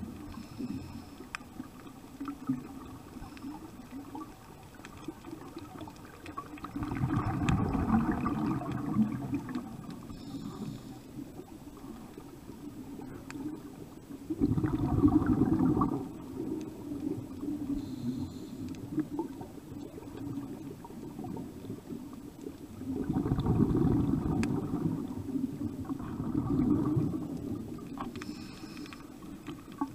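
Underwater recording of scuba breathing: three bursts of exhaled bubbles from a diver's regulator, each one to three seconds long and several seconds apart, over a steady low hum.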